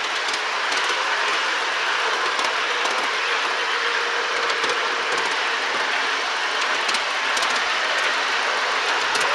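Miniature ride-on railway train running along its track, heard from aboard a passenger car: a steady running noise of wheels and cars, with light irregular clicks.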